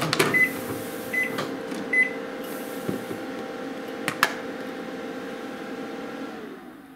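Panasonic inverter microwave ending its cycle. Its door is popped open with a click and the beeper gives three short beeps in the first two seconds. A steady hum runs on and dies away near the end, with a single clack about four seconds in.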